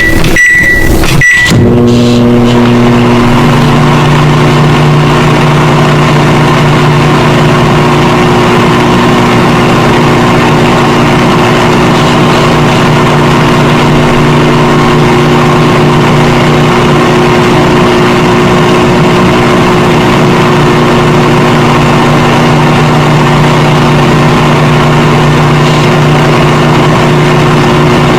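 Microwave oven: a few short high keypad beeps, then about a second and a half in the oven starts and runs with a steady, really loud hum that does not change.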